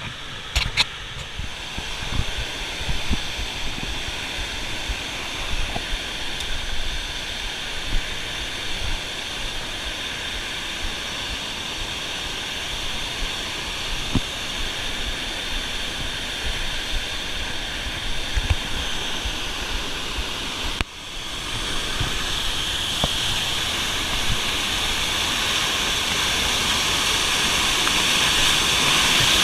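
Steady rush of a large waterfall running high after a flood, growing gradually louder in the last part, with a brief drop about two-thirds of the way in and scattered low bumps.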